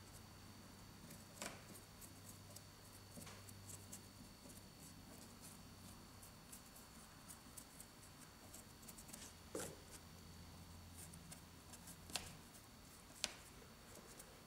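Faint scratching and tapping of a paintbrush working over a model railway rock mould, with a few sharper clicks, over a steady low hum.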